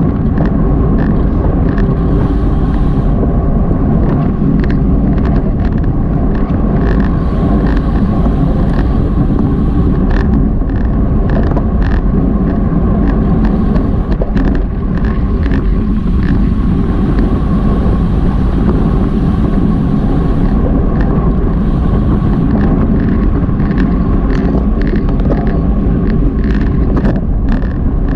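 Loud, steady wind rush on the microphone of a bike-mounted action camera at racing speed, with frequent small clicks and rattles.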